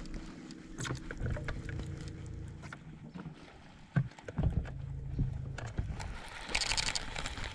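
Noises of a small fishing boat on the water: a low rumble, a sharp knock against the boat about four seconds in followed by a few smaller knocks, and a brief hiss near the end.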